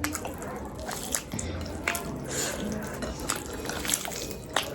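Wet chewing and mouth sounds from eating rice and chicken, with small irregular clicks and smacks.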